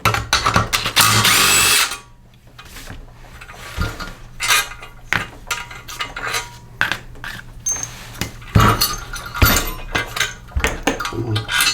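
A handheld power drill/driver whirs for about two seconds, then stops. After that come scattered light clicks and metallic taps and knocks from parts being handled.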